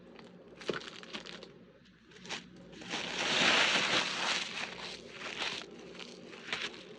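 Packaging being handled: a rustle of paper or plastic that swells for about a second and a half in the middle, with scattered small clicks and knocks.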